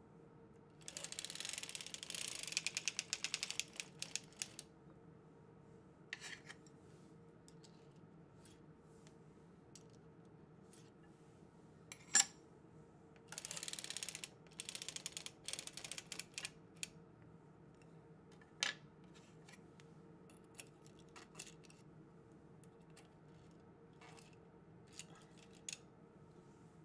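Circular sock knitting machine being cranked, in two runs of rapid metallic clicking lasting a few seconds each as the needles ride through the cams. Single sharp clicks come in between and after the runs.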